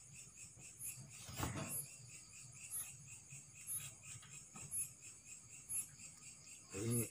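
Crickets chirping: a steady high-pitched trill with a higher chirp about once a second, and a soft knock about a second and a half in.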